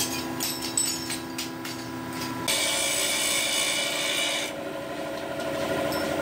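Metal motorcycle brake shoes clinking as they are handled from a pile, over a steady hum, then from about two and a half seconds in a hand file rasping against a metal brake shoe, loudest for the first two seconds of filing.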